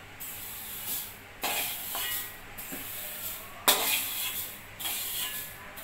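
A metal spoon scraping freshly roasted sesame seeds out of a hot pan, the seeds rustling and hissing against the metal in several sudden strokes.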